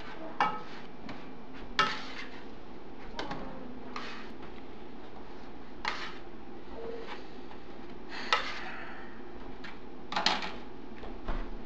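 A spatula knocking and scraping against a frying pan and plate as pancakes are lifted out and stacked, in scattered clicks a second or two apart over a steady low hiss.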